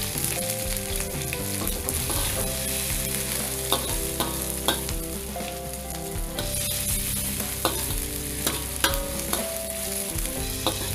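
Pounded garlic, ginger, shallot and chilli paste with lemongrass sizzling in hot oil in a metal wok while a metal ladle stirs it, scraping the pan and clinking sharply against it a few times. The aromatics are being sautéed until golden and fragrant.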